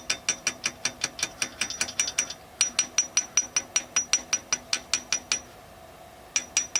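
Light, rapid metal-on-metal tapping on a VAZ 2109 engine's cylinder head, about five even ticks a second, each with a bright ring. The taps mimic an engine knock so it can be matched to a part. The run breaks briefly a little past two seconds, pauses for about a second near the end, then resumes for a few more taps.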